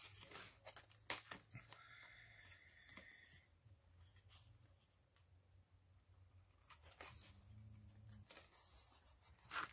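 Near silence with faint rustling and small clicks of paper being handled by hand, a few near the start and one near the end.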